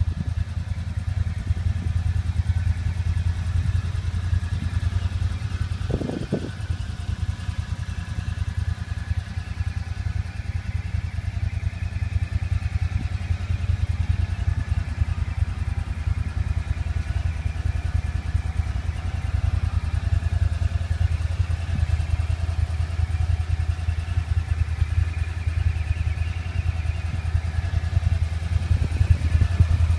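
Kawasaki Teryx 4 750 side-by-side's V-twin engine idling steadily, with a brief low knock about six seconds in.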